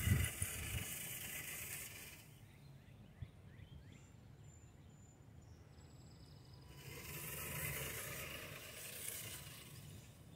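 Radio-controlled truck driving over grass, its motor and drivetrain running in two spells, the first two seconds and again from about seven to ten seconds, with a lull between. The truck is new and being broken in.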